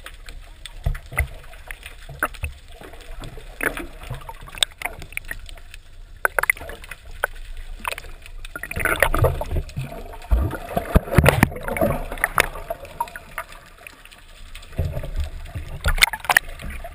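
Water moving and sloshing over a waterproof camera housing held underwater, with irregular knocks and clicks on the housing, busiest in the middle.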